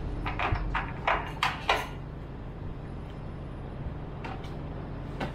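A quick run of metal clicks and clunks from a truck-stop diesel pump nozzle being handled, then a steady low hum, with one more click near the end.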